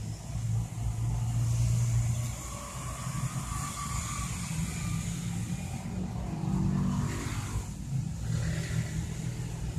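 An engine running, its low hum shifting up and down in pitch a little.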